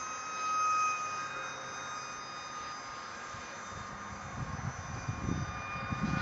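The electric ducted fan of a ParkZone AS3X MiG-15 radio-controlled jet in flight, a steady high-pitched whine. An uneven low rumble joins from about four seconds in.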